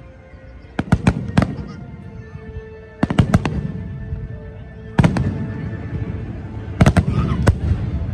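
Aerial fireworks bursting: four clusters of sharp bangs about two seconds apart, with a low rumble lingering between them.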